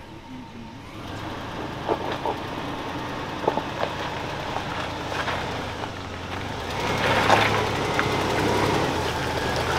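A four-wheel-drive wagon's engine running under load as it crawls up a stepped rock ledge, growing louder from about seven seconds in. Tyres crunch over the rock, with a few sharp knocks.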